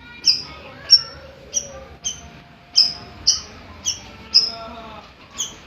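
A bayeman songbird repeating a sharp, falling chirp about twice a second, with fainter warbling from other birds behind it.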